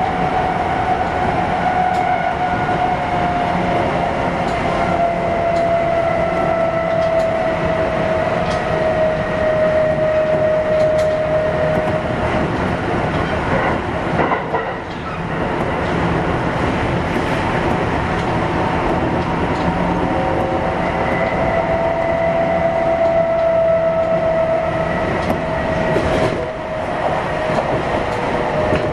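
Kintetsu 1021 series electric train running, heard from inside the car: the Hitachi GTO VVVF inverter's whine slides slowly down in pitch as the train slows, breaks off about halfway through, and comes back near the end. Under it runs a steady rumble of wheels on rail, with a couple of knocks over joints.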